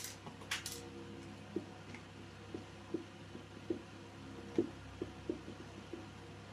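Handling noise while a small speaker is being taken apart: two or three sharp clicks at the start, then soft, irregular taps and knocks about every half second, over a steady low hum.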